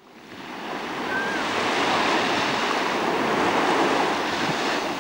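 Ocean surf washing up a flat sandy beach: a steady rushing wash of waves that fades in over the first second.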